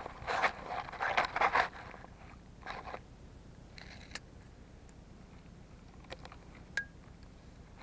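Dry wheat-stubble straw and loose soil crunching and crackling right at the microphone as a hand works through it and pushes in a tape measure. The crackling comes in loud bursts over the first two seconds, then fainter scrapes, and a single sharp click near the end.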